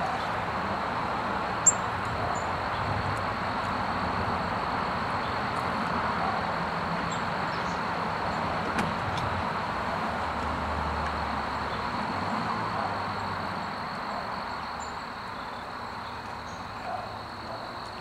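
Steady outdoor background hiss with a thin, high, steady tone running through it. A single sharp click comes about two seconds in, and a few soft ticks come near the end.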